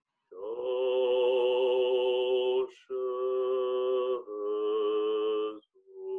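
A man chanting the long held "tong" sound of Zhineng Qigong practice, three sustained notes at a steady pitch with short breaths between them, and another beginning near the end.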